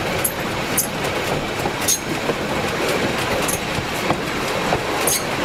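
Steel wheels of a small two-axle railway wagon rolling along the rails, heard close up: a steady rumble with a few irregular sharp clicks and brief squeaks from wheel and rail.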